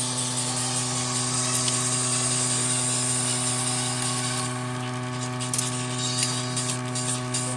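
Sperry Rand electric typeball typewriter running, its motor humming steadily with a high hiss over it. The hiss drops away about four and a half seconds in, and scattered mechanical clicks follow.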